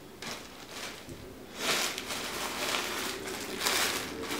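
Clear plastic bag around a new garment crinkling and rustling as it is handled. Faint at first, louder from about a second and a half in.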